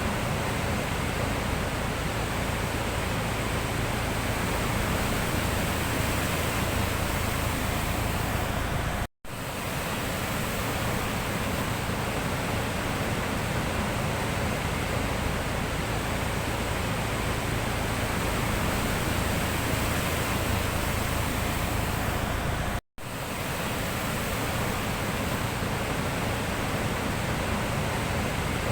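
Sea surf as one steady rush of noise, with no single waves standing out. It cuts out abruptly for an instant twice, about nine seconds in and again about twenty-three seconds in, then resumes.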